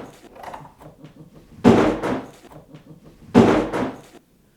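Two loud thumps or slams, about a second and a half apart, each dying away over about half a second.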